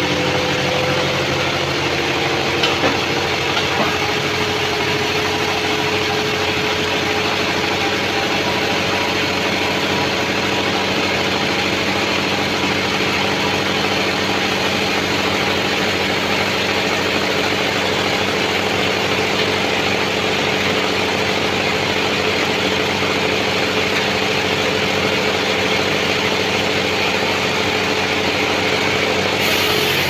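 Band sawmill running steadily while its blade saws through a large sengon (Albasia) log: a continuous, unchanging machine drone with a steady hum.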